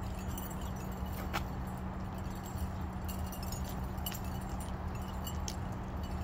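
A few light metallic clinks from small objects being handled, over a steady low outdoor rumble with a faint hum.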